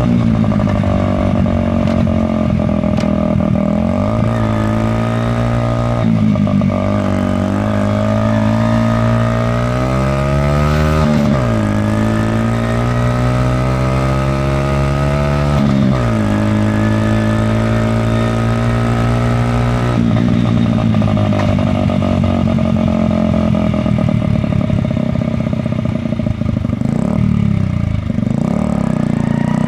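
Honda Magna 50's small single-cylinder four-stroke engine, breathing through the stock muffler with its baffle removed, running loud under way. Its pitch climbs and drops back several times as it pulls through the gears, then holds steadier.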